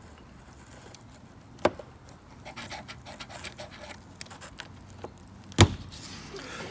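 Quiet handling noise while soldering a relay contact, with two sharp clicks about four seconds apart as the solder wire and iron touch the metal terminal.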